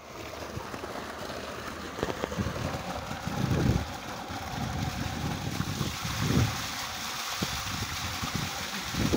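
Water gushing from a pipe into a water tank, a steady rushing splash, with a person wading and splashing under the jet. A few low swells of wind buffet the microphone.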